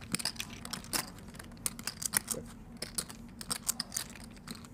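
Poker chips clicking against each other as players handle and riffle their stacks at the table, a steady patter of quick, irregular clicks.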